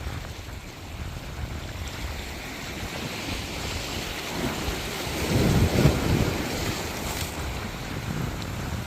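Waves washing onto a shore: a steady wash of surf that swells to a louder breaking wave about five to six seconds in, then eases back.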